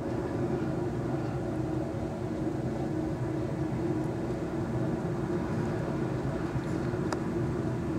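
Jet airliner engines running with a steady drone and hum.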